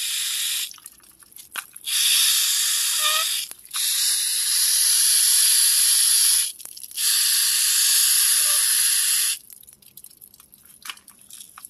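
Water spraying from a garden hose spray nozzle, a steady hiss that stops and starts: four spells of spray with short breaks between them and a longer break near the end.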